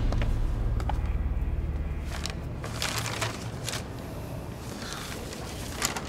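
A low rumbling drone from a dramatic music cue fades out over the first two seconds or so. It is followed by a few soft clicks and rustles.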